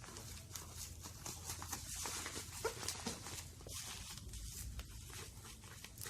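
Packaging being handled: soft rustling with many light clicks and taps as parts are lifted out of a box.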